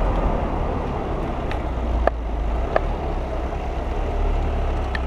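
Wind buffeting the microphone of a bicycle-mounted camera over steady road noise while riding in a bunch of road cyclists, with a few short clicks around two and three seconds in.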